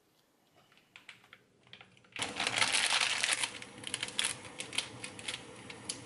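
Faint taps of hands on a kimbap roll, then about two seconds in, a pot of water at a rolling boil on a gas stove cuts in, a loud dense bubbling with many small pops.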